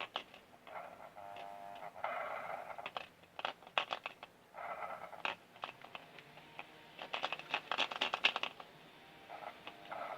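Handling noises from work on a drainage pump: irregular clicks, knocks and scraping of parts and tools, with a dense run of clicks about seven to eight seconds in.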